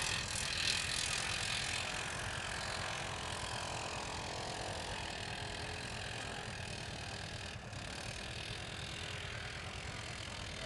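ATV engine running under load as it drives up a snowy hill, loudest near the start and slowly fading.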